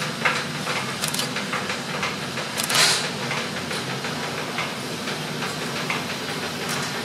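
Large burner flame on a glassworking lathe, hissing steadily, with scattered clicks and knocks from the lathe. A short, louder whoosh comes a little under three seconds in.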